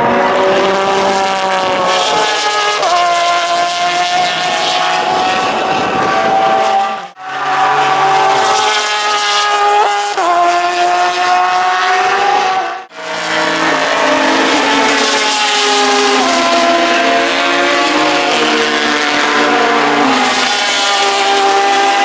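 Porsche 911 RSR race car's naturally aspirated flat-six engine at high revs, accelerating hard through the gears: the pitch climbs, then drops sharply at each upshift. The sound breaks off abruptly twice, about seven and thirteen seconds in.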